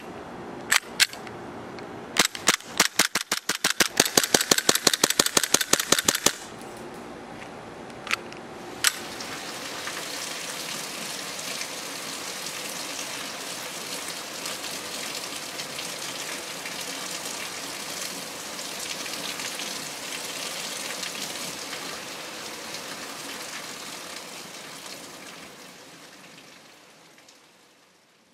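ICS BLE XPD gas blowback airsoft pistol firing: a few single shots, then a fast string of shots lasting about four seconds, then two more. After the shooting, a steady hiss follows and fades out near the end.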